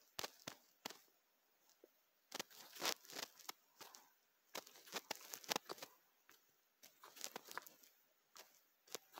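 Faint handling noise from fingers tapping and swiping on a phone: sharp irregular clicks and crackles in short clusters, with quiet gaps between them.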